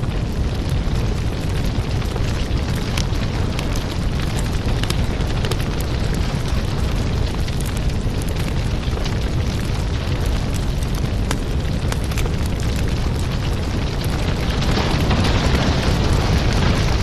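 Firewood burning: a steady low rush of flame with many small crackles and pops, growing a little louder near the end.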